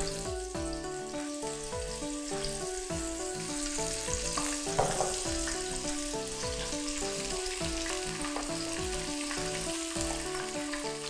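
Batter-coated enoki mushrooms sizzling as they deep-fry in hot oil in a wok; the sizzle starts suddenly as they go into the oil and then holds steady. Background music plays underneath.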